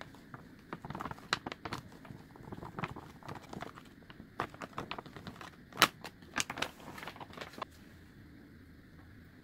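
Paper bag of flour crinkling and rustling as it is tipped and shaken over a bowl of sweet corn kernels, with scattered sharp clicks and taps, the loudest a little under six seconds in. The handling sounds stop a couple of seconds before the end.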